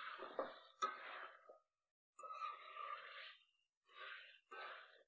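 Metal spatula scraping and stirring chicken pieces in hot oil in a metal wok, in four or five short strokes with brief gaps between them. The chicken is being dry-fried in oil with no water added (the kosha stage of a Bengali curry).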